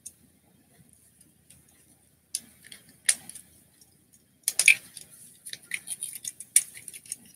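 Small plastic clicks and snaps as a Transformers action figure's parts and joints are twisted and clicked into place by hand: a few separate clicks at first, then a quick run of clicks and taps from about halfway through.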